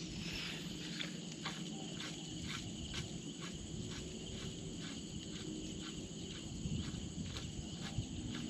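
Outdoor ambience of insect chirping, short even pulses at about two to three a second, over a faint low rumble.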